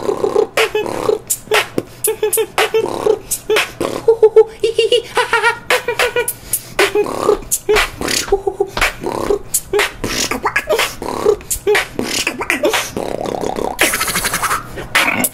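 Solo human beatboxing: rapid mouth-made kick, snare and click sounds woven with hummed pitched tones. Near the end comes a sustained hiss of about a second.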